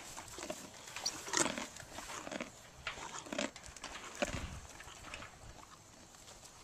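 White mule chewing carrots close up: irregular wet crunches, thinning out in the last two seconds.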